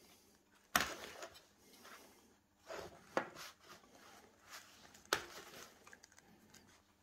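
Handling noise as a plastic inkjet printhead is set down and moved about on a workbench over paper tissues. There are three sharp knocks, about a second in, about three seconds in and about five seconds in, with softer rubbing and rustling between.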